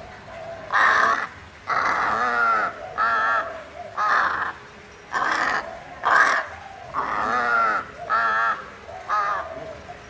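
A crow cawing repeatedly: about nine harsh calls, each under a second long, some with a wavering pitch.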